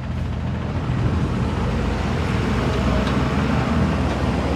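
Nissan Skyline R33's engine running steadily under way, with road and traffic noise; it gets louder about a second in.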